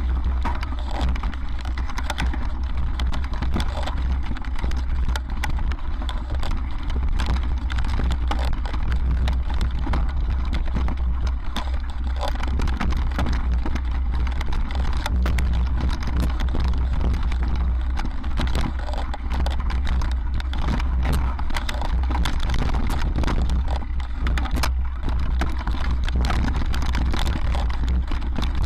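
Mountain bike ridden fast over a rocky trail, heard from a camera on the bike or rider: constant rattling and clicking of the bike over stones, over a steady low rumble of wind on the microphone.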